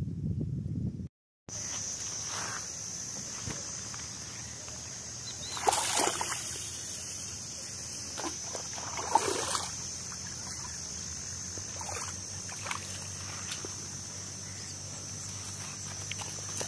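Steady high-pitched insect drone, with two short louder noises about six and nine seconds in.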